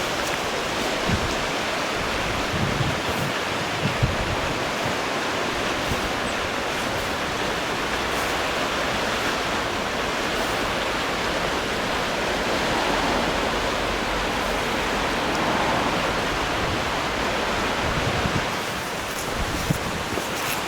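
Steady rain, an even hiss, with a few brief low thumps near the start and near the end.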